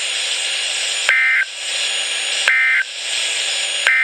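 Weather radio static broken by three short warbling digital data bursts, about one and a half seconds apart: the EAS SAME end-of-message tones that close an emergency alert broadcast.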